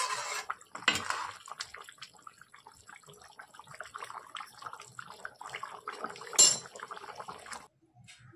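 Metal ladle stirring thick chicken curry in a metal kadai, the liquid sloshing at the start and again about a second in. Then the curry bubbles at a simmer with a steady patter of small pops, a louder burst about six seconds in, and it stops shortly before the end.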